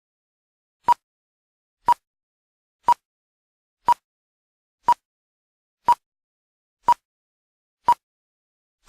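Short electronic beeps at one high pitch, evenly spaced one a second, with silence between; eight go by and a ninth comes right at the end, like a countdown timer.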